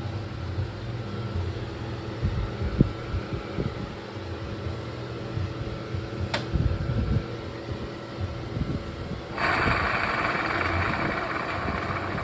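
KYMCO KRV scooter's single-cylinder engine running steadily, with a single sharp click about halfway and a loud steady hiss joining about three-quarters of the way through. The scooter is being checked for an abnormal noise from a worn belt-pulley bearing.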